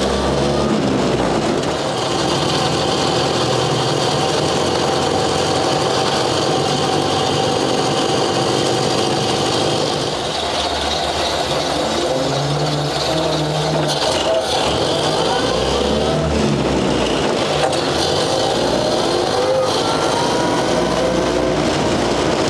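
A 1929 Ford Model AA truck's four-cylinder side-valve engine running under way as the truck pulls off and drives on, heard from inside the cab. Its note rises and falls with the revs, with a brief drop in level about ten seconds in.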